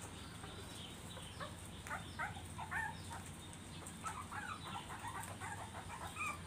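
A 16-day-old puppy whimpering in many short, high squeaky cries, starting about a second and a half in and going on: a young pup crying because it can't find its mother.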